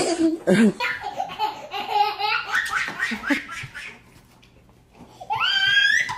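People laughing, a small child's laughter among them, in quick repeated bursts. After a brief lull, a high-pitched squeal rises in pitch near the end.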